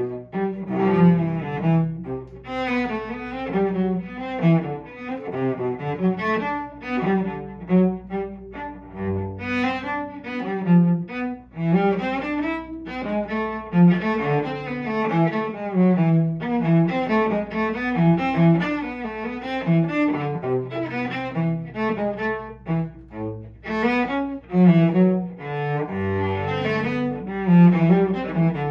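Solo cello played with the bow in a Bourrée, a brisk run of notes changing several times a second over a low register.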